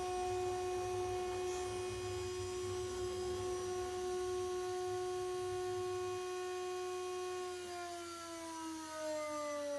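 High-speed spindle of a 6040 CNC router whining steadily as a 6 mm two-flute end mill cuts 6082 aluminium, with a low rumble under it. The rumble stops about six seconds in, and near the end the whine falls steadily in pitch as the spindle winds down.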